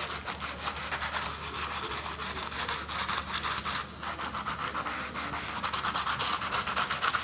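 A hard-bristled brush scrubbing foaming cleaner into a laptop's back cover in rapid back-and-forth strokes, with a short pause about four seconds in.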